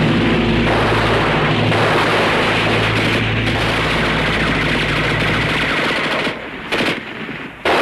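Sustained rapid machine-gun fire with a low steady drone beneath it; it breaks off about six seconds in, followed by one short burst.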